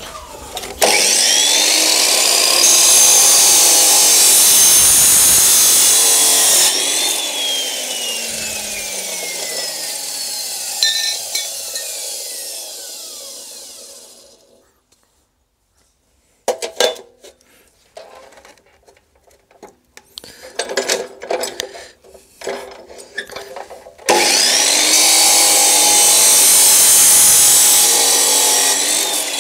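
Abrasive chop saw (metal cut-off saw) cutting through square steel tube twice. The first cut starts about a second in and lasts about six seconds, then the motor spins down with a falling whine; a run of knocks and clatter follows as the work is handled, and a second cut starts near the end and begins to wind down as it finishes.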